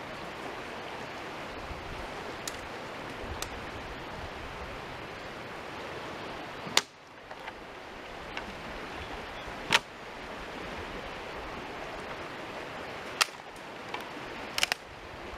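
Dry dead branches cracking sharply as they are snapped and handled for firewood: several loud cracks a few seconds apart. Behind them the steady rush of a fast-flowing creek.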